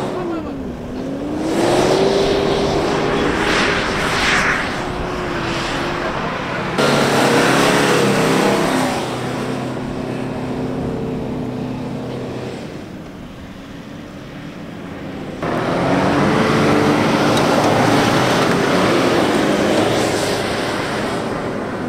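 SUV engines revving hard as each vehicle climbs a sand dune, in turn a Mitsubishi Pajero Sport, a Toyota Fortuner and a Ford Endeavour, with tyres churning sand. The engine pitch drops and swings back up near the start, and the sound changes abruptly twice as one climb gives way to the next.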